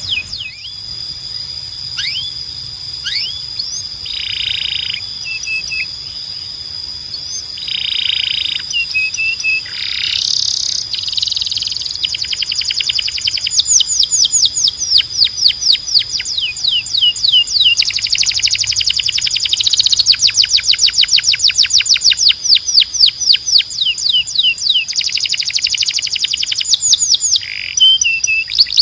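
Domestic canary singing: bursts of short chirps and rapid rolls of quick down-sweeping notes. About halfway through these lengthen into long, fast trills. A steady high whistled tone runs underneath.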